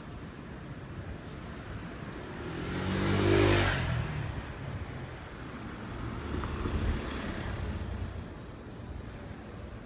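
A motor vehicle passes close by, its engine swelling to a peak about three seconds in and then fading. A second, quieter pass follows a few seconds later over a steady street background.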